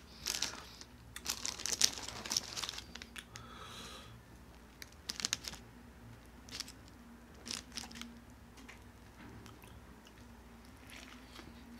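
Close-miked eating of a Western Bacon Cheeseburger with crunchy onion rings and bacon: sharp crunches and wet chewing, with some paper wrapper crinkling. The sounds are busiest in the first two seconds, then come as scattered crunches.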